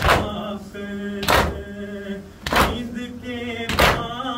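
Mourners beating their chests in unison (matam): four loud slaps, about one every second and a quarter. Between the slaps, voices chant a noha lament.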